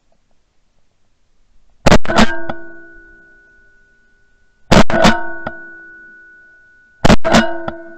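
Three loud strummed chord hits, added as music, each a cluster of quick strokes that rings out and fades over about a second and a half, spaced roughly two to three seconds apart.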